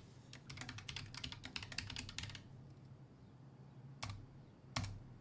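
Typing on a computer keyboard: a quick run of keystrokes for about two seconds, then two single louder clicks near the end.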